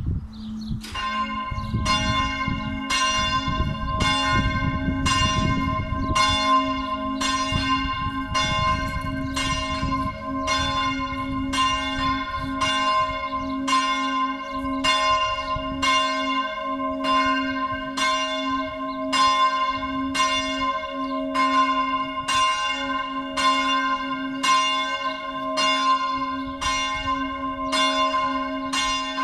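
Full peal of a four-bell church tower tuned in G-flat, all bells swinging and ringing together in a fast, steady stream of strikes that begins about a second in.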